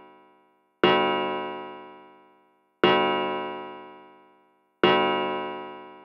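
Pendulum wall clock striking the hour: three slow, evenly spaced strikes about two seconds apart, each ringing out and fading before the next.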